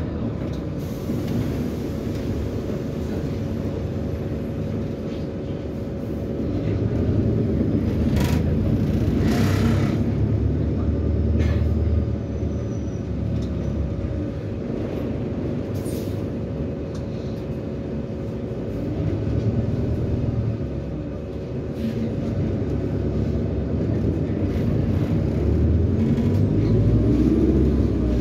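Interior drive noise of an Autosan SanCity 9LE city bus: its Cummins ISBe diesel engine and Allison automatic drivetrain drone steadily with road rumble, growing louder and easing off several times as the bus pulls away and slows. A brief hiss comes about nine seconds in, and a rising whine near the end.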